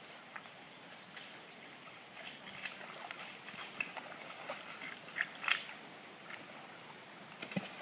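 Shallow creek water around wading legs, with scattered small splashes and clicks of stones, a couple of louder ones about five seconds in.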